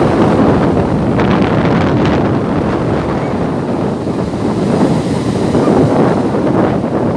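Strong wind buffeting the microphone over rough sea surf, waves breaking and washing in a continuous loud rush.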